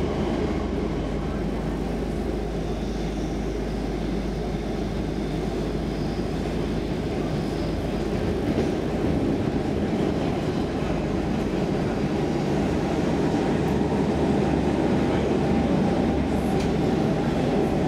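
Stockholm Metro C15 train running through a tunnel, heard from inside the carriage: a steady rumble of wheels on rails, growing a little louder in the second half.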